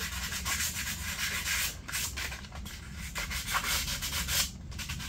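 Sandpaper rubbed by hand in quick back-and-forth strokes over the edge of a freshly painted light surround, scuffing the paint to give it a worn, grimy look.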